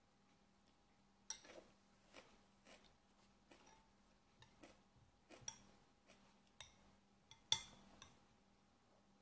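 Metal spoon clinking against a bowl as it scoops: a dozen or so light, irregular clinks, the loudest about seven and a half seconds in.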